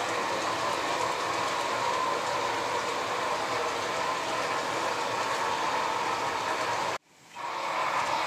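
HO-scale model freight train cars rolling along the track with a steady rolling hiss. The sound drops out abruptly about seven seconds in, then returns.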